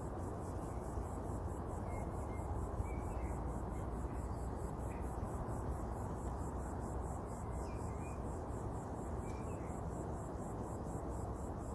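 Background insect, likely a cricket, trilling high-pitched in even pulses several times a second, over a steady low rumble, with a few faint short chirps.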